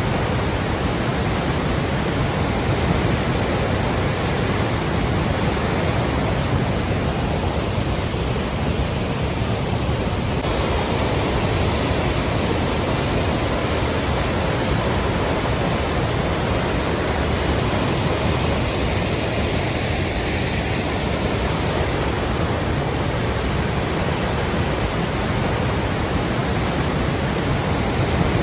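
Flowing water rushing steadily as a dense, even hiss with no breaks or distinct splashes.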